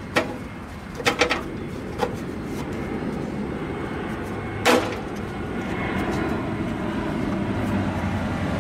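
Sheet-metal cooling tin on an air-cooled VW Type 3 engine knocking as it is forced into place, a handful of sharp knocks. Behind them, a jet aircraft's rumble grows steadily louder from about two seconds in.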